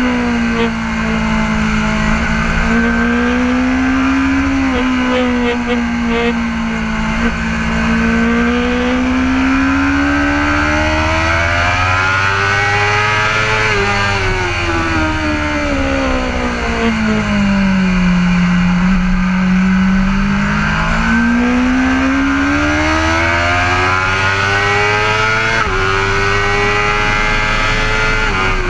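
BMW S1000RR's inline-four engine with an Akrapovic exhaust running hard, its pitch sliding smoothly down and up over several seconds as revs fall and climb, twice rising to a high howl. Steady wind rush sits underneath.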